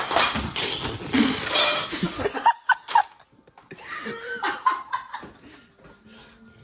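People laughing: a run of breathy laughter over the first couple of seconds, then a few short chuckles that trail off.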